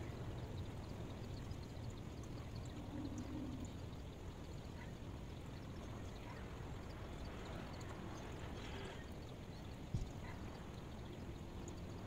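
Steady rushing white-noise track, heaviest in the low end, with a few faint ticks and a single short low thump about ten seconds in.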